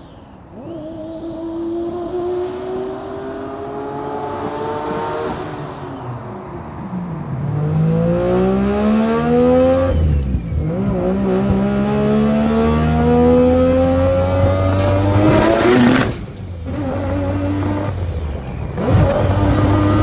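Turbocharged Mazda RX-7's three-rotor rotary engine at full throttle. It is first heard rising in pitch, then falling steeply as the car goes by, then from inside the cabin it revs hard and high through the gears, with a brief drop in the sound at each of three upshifts.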